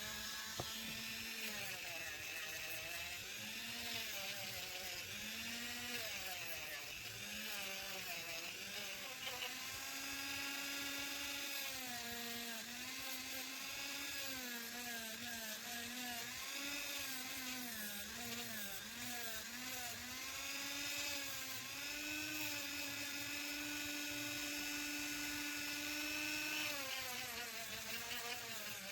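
Small high-speed power tool running while shaping wood, its motor pitch sagging and recovering again and again as it bites into the work and is eased off.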